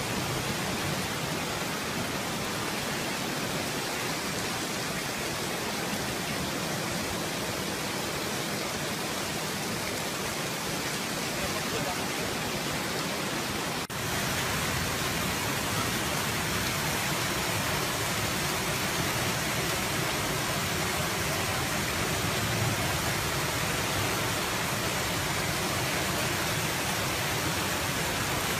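Floodwater rushing in a torrent through a street: a steady, even rush of fast-moving water. A brief dropout about halfway through, after which the rush is slightly louder.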